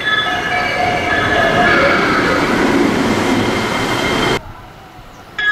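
Train music horn playing a short melody of held electronic notes over the noise of a passing train, cutting off suddenly about four and a half seconds in; another music horn melody starts just before the end.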